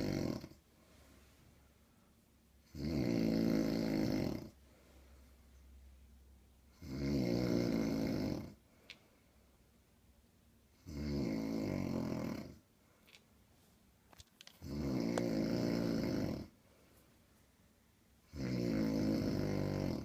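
A woman snoring loudly in her sleep: snores of under two seconds each, coming about every four seconds.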